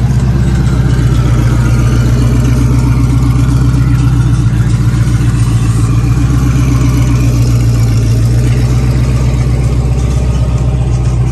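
A Ford Mustang's engine idling, a loud, steady, deep exhaust rumble that holds even throughout.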